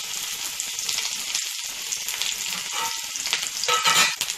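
Sliced onion sizzling and crackling in hot oil in an iron kadai, a steady frying hiss with a brief louder burst just before the end.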